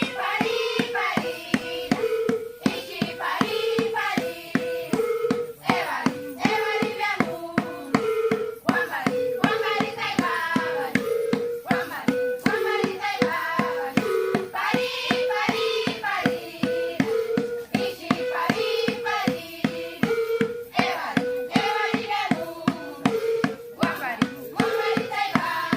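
Music: a melody, with what may be singing, over a steady percussive beat.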